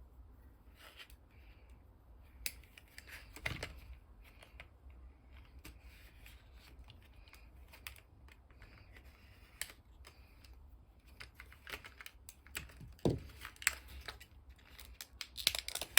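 Plastic packaging of a padlock being handled and opened: scattered small clicks and crinkles, with heavier knocks about three and a half and thirteen seconds in and a burst of crinkling near the end.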